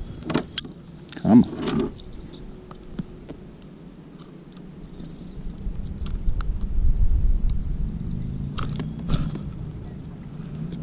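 Metal fishing pliers clicking and scraping against a hook stuck deep in a bass's mouth, in scattered sharp clicks, with a low rumble of handling in the middle.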